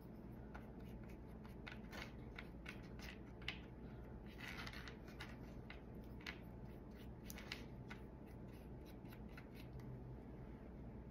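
Faint, irregular scratchy strokes of light hand sanding on small wooden craft pieces.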